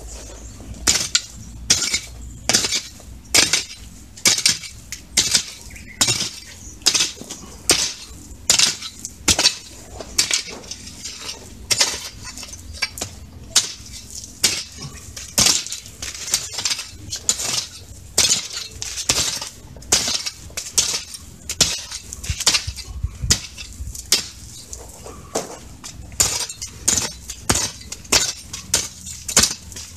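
A garden fork digging into dry, gravelly soil: repeated sharp scraping strikes, about one or two a second, as the tines bite into earth and small stones.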